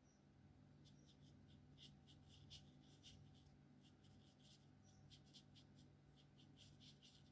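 Alcohol marker tips stroking on paper, faint: many quick, short scratchy strokes, with a few brief high squeaks of the felt tip.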